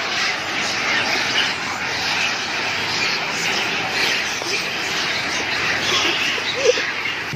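Long-tailed macaques of rival troops fighting, many screeching at once so that their cries overlap into one continuous high-pitched clamour, with one louder cry near the end.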